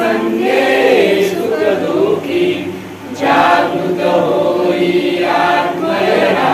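A group of voices singing a Marathi devotional bhupali aarti together, in long sung phrases with a short break about three seconds in.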